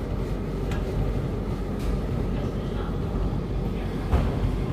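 Hoover tumble dryer running with a steady low rumble from its turning drum, with a few light clicks and one sharper knock about four seconds in.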